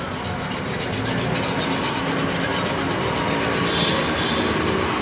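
Hand file rasping along the edge of a steel billhook blade in repeated strokes, over steady road traffic noise.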